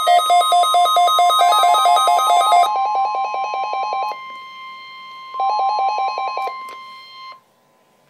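Several NOAA weather alert radios sounding their alerts for a weekly test: fast electronic beeping in two alternating pitches over the broadcast's steady weather-radio warning alarm tone. The beeping drops away in stages around three and four seconds in, returns briefly near six seconds, and the alarm tone cuts off about seven seconds in.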